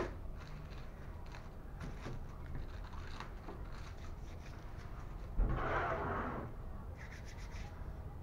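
Light handling of a tissue-paper kite on a table: faint taps and paper sounds, with one louder rustle of the paper lasting about a second, about five and a half seconds in.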